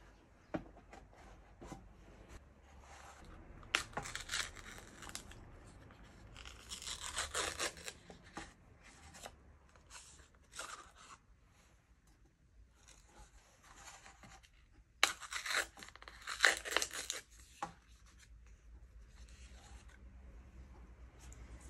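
Paper cups being torn and peeled away from baked oat biscuit cups, in several separate bursts of tearing and crinkling paper.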